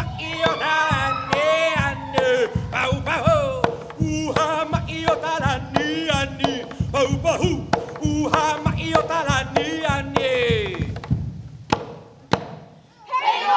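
Hawaiian hula chant: voices chanting a melody that rises and falls, over sharp drum strikes. Near the end the chant stops and only a couple of lone strikes are left.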